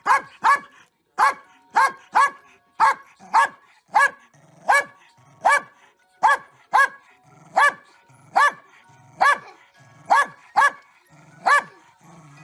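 A dog barking over and over in a steady rhythm, one short, sharp bark every half second to second, sometimes two in quick succession.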